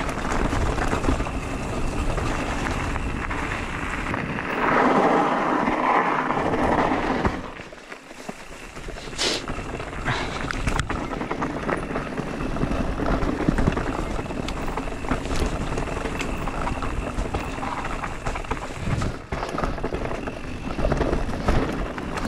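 Riding noise from a Haibike SDURO FullNine electric mountain bike on a forest trail: wind buffeting the camera microphone with a steady low rumble, the rattle of tyres and frame over the ground, and a few sharp knocks from bumps. It gets louder for a few seconds about five seconds in, then drops briefly.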